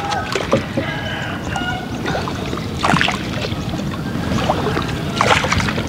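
Small wooden boat being paddled with long wooden oars: water sloshing along the hull, with two louder oar strokes, about three seconds in and near the end.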